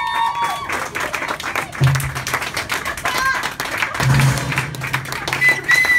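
Audience clapping and cheering at the end of a rock band's live set. Underneath, a low steady tone from the stage sound comes in twice, briefly and then for nearly two seconds. A few short high whistles come near the end.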